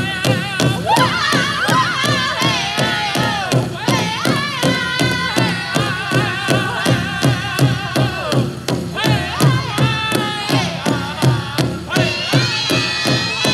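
Powwow drum group playing a chicken dance contest song: a fast, even drumbeat on a big hand drum under high-pitched singing in unison, the voices pausing briefly twice while the beat carries on.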